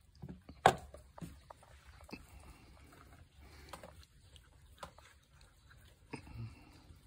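A sharp knock under a second in, then a cat eating dry kibble from a bowl: irregular crisp crunches and clicks.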